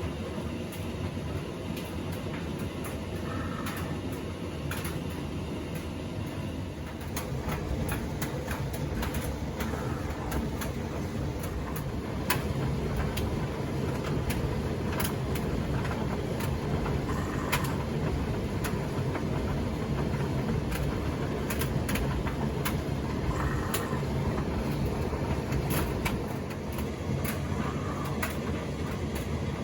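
Indesit EDCE85 condenser tumble dryer running with a steady low rumble from the turning drum and irregular clicks and taps from the tumbling load. The running gets louder about seven seconds in and eases a little near the end.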